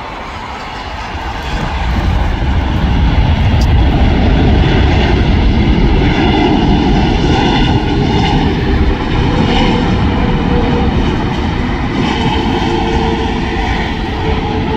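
Airbus A330 airliner's twin jet engines spooling up sharply about two seconds after the nose wheel comes down, then running loud and steady with a deep rumble and a whine on top through the landing roll: reverse thrust after touchdown.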